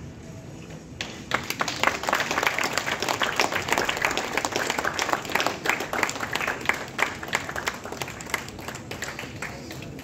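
Audience applauding, breaking out suddenly about a second in and thinning out near the end.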